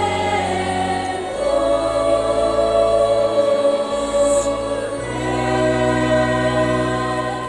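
Church choir singing held chords in parts with keyboard accompaniment, the chord changing about a second in and again about five seconds in, then fading near the end.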